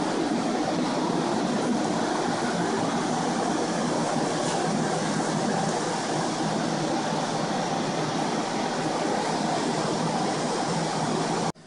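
Several restoration air movers (floor blowers) running together in a steady drone, drying out the flood-damaged rooms; cuts off suddenly near the end.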